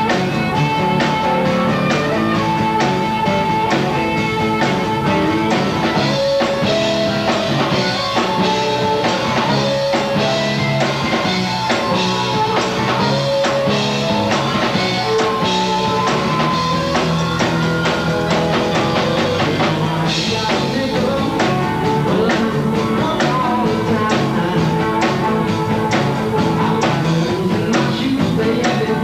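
Live blues-rock band playing: a harmonica wails held and bending notes over electric guitar and a drum kit.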